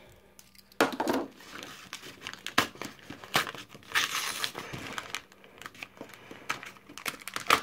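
Pokémon booster packs' crinkly foil wrappers and torn cardboard and paper packaging rustling and crackling as the packs are handled and pulled out of the opened box, in irregular bursts with sharp crinkles, louder about a second in and again around four seconds.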